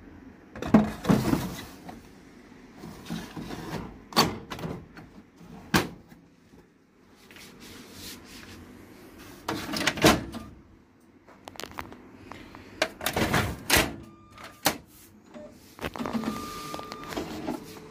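Plastic front door and covers of a Sharp AR-6023N copier being handled and pushed shut, a string of separate knocks, clacks and latch clicks. Near the end a short thin tone sounds and a steady hum sets in.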